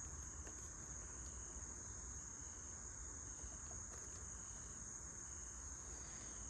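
Steady chorus of insects, a continuous high-pitched trill that does not change, over a faint low rumble.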